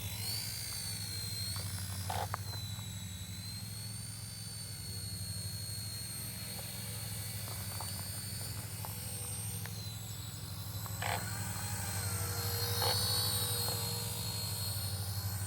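Radio-controlled model helicopter in flight: a steady high whine from the motor and rotors that drifts up and down in pitch with the throttle, over a low hum. A few short clicks come about two seconds in and again near eleven and thirteen seconds.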